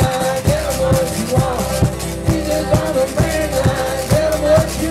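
Twelve-string acoustic guitar played with a slide in a country-blues style: notes glide in pitch over a steady picked bass beat about twice a second.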